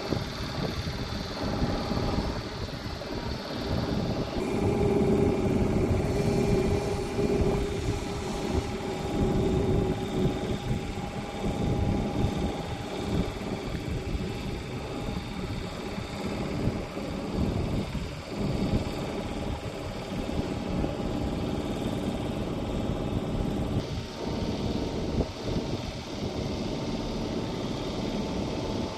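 Boeing 737 MAX CFM LEAP-1B jet engines running steadily: a low rumble that rises and falls a little, with thin whining tones over it.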